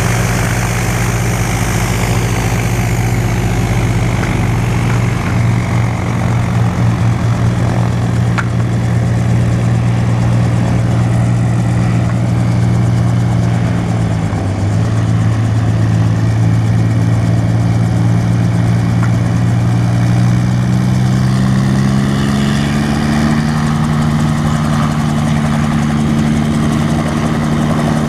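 Bell 47 helicopters' piston engines and rotors running in a steady low drone. A little past two thirds of the way through, the pitch rises and then holds higher as one helicopter is powered up and lifts off.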